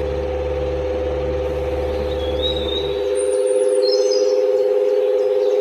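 Small electric motor of a miniature model tractor running with a steady two-tone hum, a low rumble under it dropping out about halfway through. Birds chirp over it in the second half.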